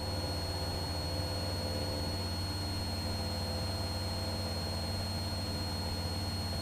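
Cessna 172's engine and propeller drone heard inside the cabin, steady and unchanging, with a faint steady high whine above it.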